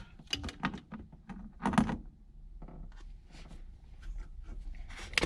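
Light handling noises of hands working tools and wires: scattered small clicks and knocks, with one louder knock a little under two seconds in.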